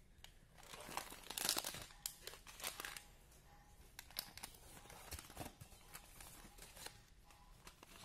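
Brown paper package being torn open and rummaged by hand, paper and the packets inside crinkling and rustling, loudest about one and a half seconds in, then softer rustles and small clicks.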